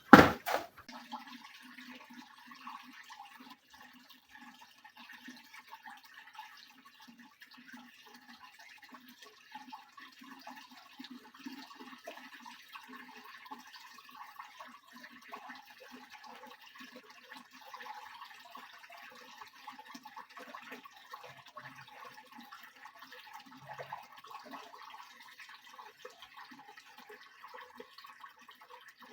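Water splashing and trickling in the tub of a Soviet washing machine during a wash, irregular and fairly even throughout, after a brief loud knock at the very start.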